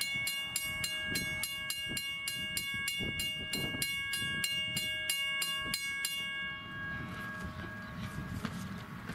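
Thomas the Tank Engine replica steam locomotive pulling out with its bell ringing, about three strikes a second, over the chuff of its exhaust. The bell stops about six and a half seconds in, leaving the exhaust and the running train.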